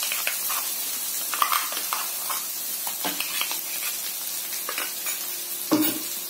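Goat lung pieces sizzling as they fry in oil in a non-stick pan, a steady hiss with scattered light clicks and a louder knock near the end.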